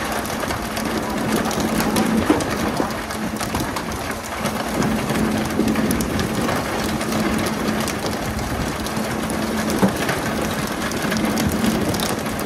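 Fishing boat at sea: a steady engine hum under a constant rushing hiss of water, with scattered knocks and slaps, the sharpest about two seconds in and near the end.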